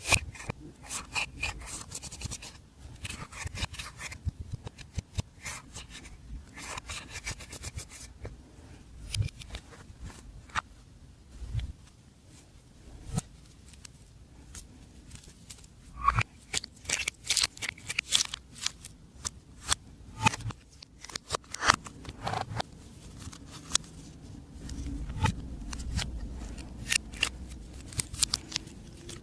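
Glossy slime being mixed and worked by hand, giving many irregular sticky clicks and pops with some scraping and rubbing. The clicks come thickest in a run of quick snaps about two-thirds of the way through.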